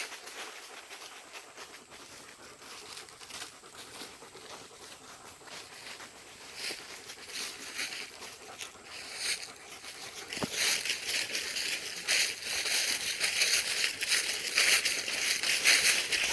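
Footsteps crunching and rustling through leaf litter and brush, a busy crackle of small snaps that grows louder about two-thirds of the way through.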